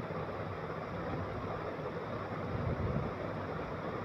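Steady low hiss of background noise, with no distinct strokes or knocks.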